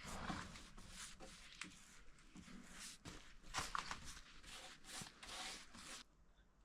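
Faint, irregular scratchy strokes of a brush working over the painted wooden top of an oak cabinet, as paint stripper is brushed on. The strokes stop about six seconds in.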